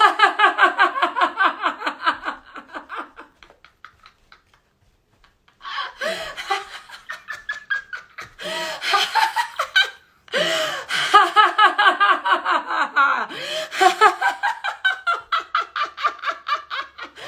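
A woman laughing hard in rapid ha-ha-ha bursts, several long bouts of deliberate, sustained laughter done as a laughter exercise. The laughter breaks off for a moment about four seconds in and again briefly near ten seconds.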